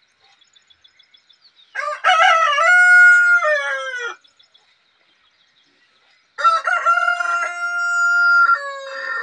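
Rooster crowing twice, each crow about two seconds long, the second ending on a long held note.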